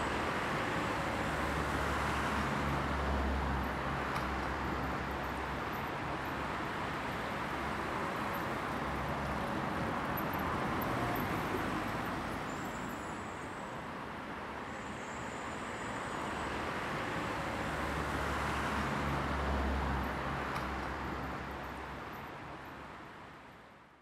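City road traffic: a steady rumble that swells and eases as vehicles pass, fading out over the last few seconds.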